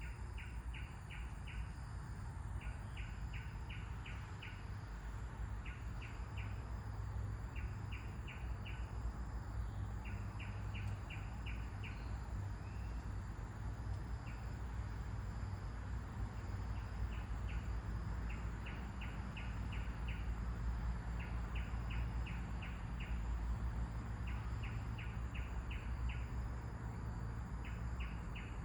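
A bird calling in quick runs of four to six sharp, high notes, repeated every couple of seconds, over a steady low rumble of wind.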